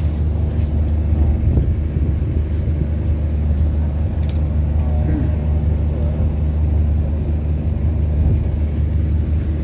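A steady low engine drone, like a motor running at idle, with faint voices in the background.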